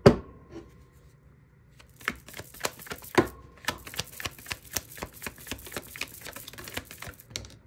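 A tarot deck being shuffled by hand: a sharp tap at the start, then from about two seconds in a quick run of card clicks, several a second, lasting about five seconds.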